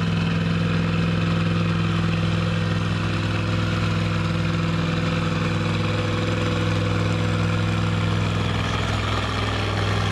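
International Harvester farm tractor's engine running hard at a steady pitch while pulling a weight-transfer sled under load; the pitch dips slightly near the end.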